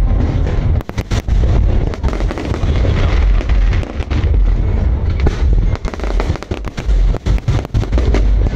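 Aerial fireworks going off in a dense, continuous barrage: many sharp bangs and crackles in quick succession over a heavy, rolling low boom.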